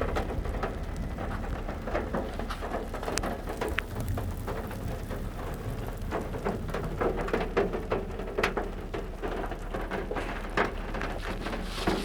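Rain falling steadily: a dense patter of many drops striking a surface.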